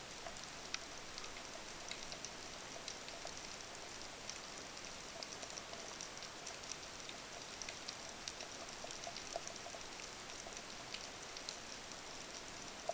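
Underwater ambient noise at depth: a steady hiss with scattered sharp clicks and crackles, a few every second.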